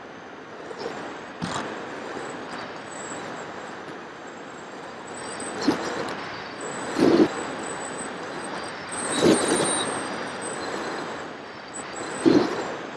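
Onboard sound of an FPV model aircraft in flight: a steady rush of wind and electric motor and propeller noise on the camera's microphone, with a thin high whine. Several brief, louder surges of wind buffeting break through.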